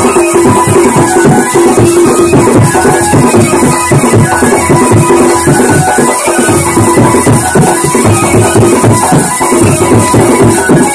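Loud folk dance music with a fast, steady drum beat, played through a horn loudspeaker.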